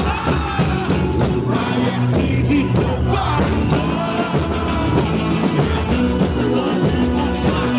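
Boi-bumbá toada: a lead singer over dense, driving drumming from the percussion group, with a fast, steady beat.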